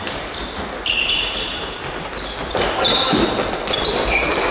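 Floorball game in a sports hall: players' shoes squeaking on the hall floor in many short high squeaks, with sharp clacks of sticks and ball.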